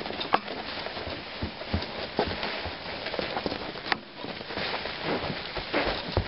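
Boston terrier crawling on its belly across carpet, pulling itself along with its front paws: a steady scratchy scuffing with scattered light knocks.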